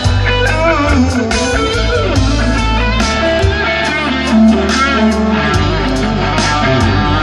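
Live blues band playing: electric guitar lines with bending, wavering notes over bass and drums.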